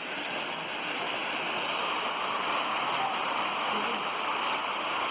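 Big mountain waterfall pouring down, a steady, unbroken rush of falling water.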